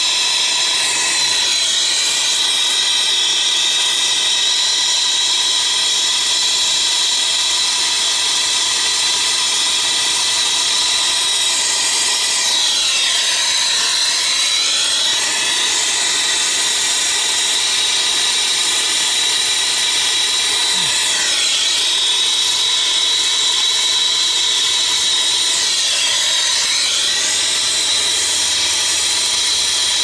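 Brazing torch flame hissing steadily as a copper refrigerant line is brazed onto a heat pump compressor, with a steady high whine beneath the hiss. The hiss shifts in tone a few times.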